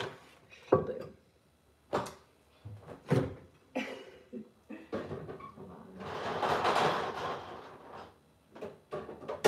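Knocks and clicks from a stainless side-by-side refrigerator's door being opened and things inside being handled. About six seconds in comes a louder, longer rush of noise lasting about two seconds.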